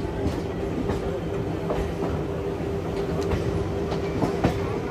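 EMU suburban local train running, heard from its open doorway: a steady hum, with the wheels clacking sharply over rail joints a few times.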